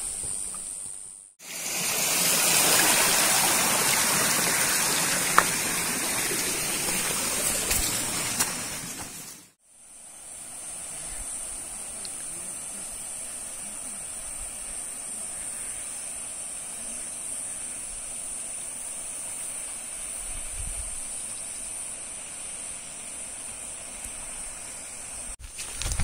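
Rushing water, like a mountain stream, for several seconds, cut off abruptly. Then a quieter steady outdoor background with a constant high-pitched buzz.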